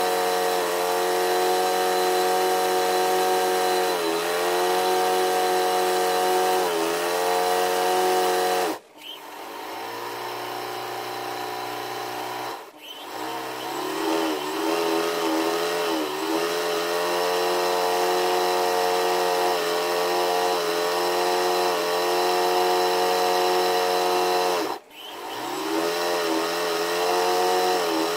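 A motor-driven machine running with a steady hum whose pitch sags now and then. It cuts out about nine seconds in and runs lower until it dips and spins back up around thirteen seconds. It cuts out and spins up again near twenty-five seconds.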